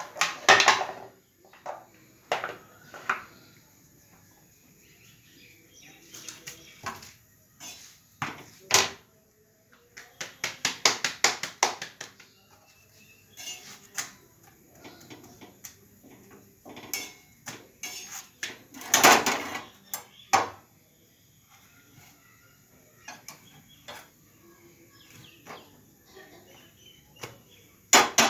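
Kitchen clatter of rotis being made on a gas stove: steel tongs and utensils clicking and knocking against the griddle and dishes. Sharp irregular knocks throughout, with a quick run of them about ten seconds in.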